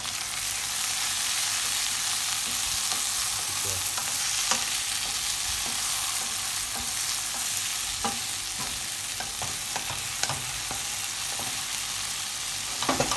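Steamed broccoli, string beans and Brussels sprouts sizzling in a hot pan: a steady frying hiss, with a few sharp clicks of a utensil stirring them.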